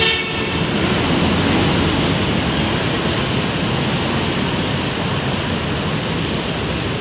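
Steady wash of heavy city road traffic noise, with no distinct events standing out.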